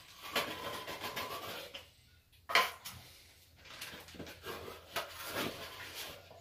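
Steel plastering trowel and knife scraping plaster mud against a plastic plaster bucket, in two stretches of scraping with a sharp knock about two and a half seconds in.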